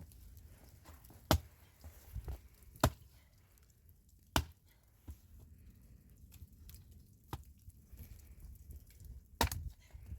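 A few sharp knocks or chopping strikes, three about a second and a half apart, then a doubled one near the end, with fainter taps between, over a low background rumble.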